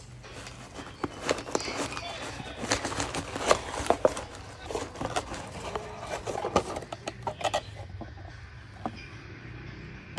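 Tissue packing paper and a cardboard box rustling and crinkling as a parcel is unpacked by hand. A dense run of crackles thins out after about eight seconds, over a low steady hum.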